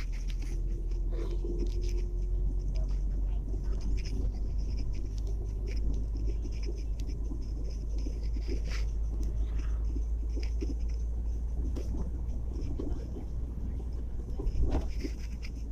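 Steady low rumble of a vehicle driving on a road, heard from inside it, with scattered small clicks and rattles and a louder bump near the end.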